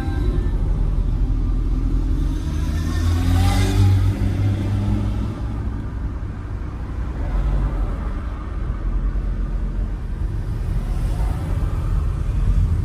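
Road vehicle running along with a steady low engine and road rumble. About two seconds in the engine note rises as it accelerates, with a brief hiss a little later.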